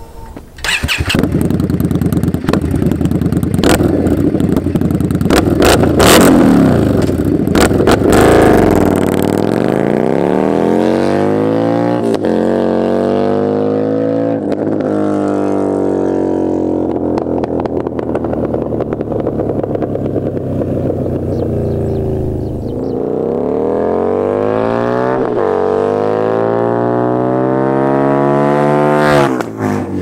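Indian Scout Bobber V-twin through a Freedom Performance Combat 2-into-1 exhaust, revved and pulling away hard. Its note rises and falls as it rides off, then climbs as the bike comes back and drops sharply as it passes, near the end.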